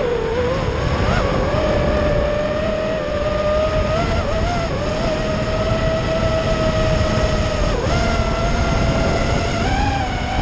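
FPV quadcopter's brushless motors and propellers whining in flight, heard from the onboard camera. The pitch stays fairly steady with small wobbles as the throttle shifts, dips briefly about eight seconds in and rises near the end, over a rough rumble of wind and prop wash.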